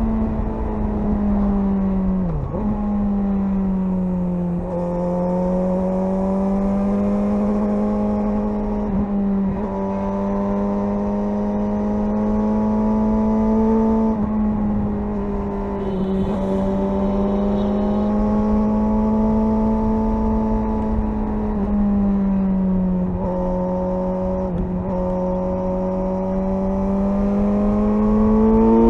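Suzuki GSR 600's inline-four engine running under way, its pitch rising and falling gently with the throttle, with a few brief dips where the revs drop.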